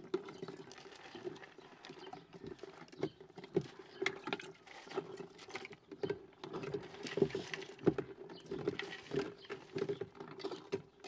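A long spoon stirring chopped fruit and ice in water inside a large glass jar, with irregular clinks and taps against the glass.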